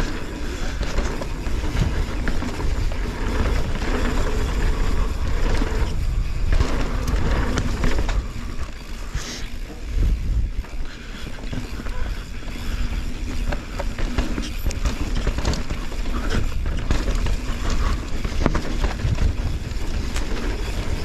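Mountain bike ridden along a dirt forest trail, heard from a GoPro mounted on the rider: a steady low rumble of tyres and frame with frequent knocks and rattles over bumps.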